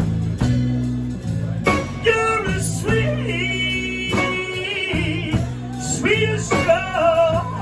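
Live blues band: a man sings long, bending held notes without clear words, over electric bass, acoustic guitar and drums.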